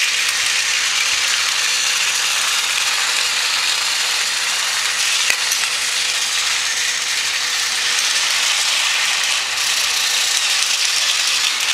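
Small battery-powered toy train engines running, their motors and gears whirring steadily.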